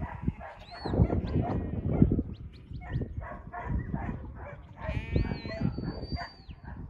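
Shepherd's whistle commands to a working sheepdog: short high whistled notes and glides, then one long held whistle about five seconds in, over a low irregular buffeting noise.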